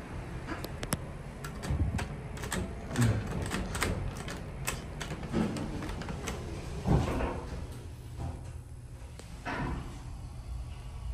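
Irregular clicking of an elevator car operating panel's pushbutton being pressed hard again and again, about a dozen clicks over the first six seconds. The button has a faulty contact and has to be mashed to register.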